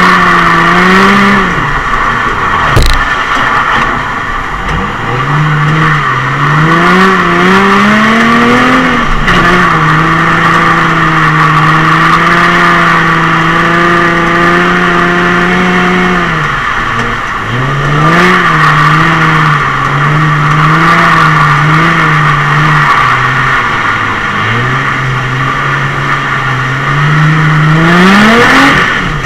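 Nissan 350Z's 3.5-litre V6, heard from inside the cabin, revving up and down repeatedly under throttle. It holds steady at high revs for several seconds mid-way, drops sharply about 16 seconds in, bounces again, then climbs near the end. A steady hiss runs underneath, with one sharp knock about 3 seconds in.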